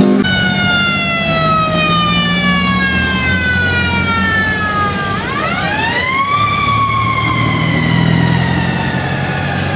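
A police car siren sounding one long wail that falls slowly for about five seconds, climbs quickly, then falls slowly again, with car engines running underneath.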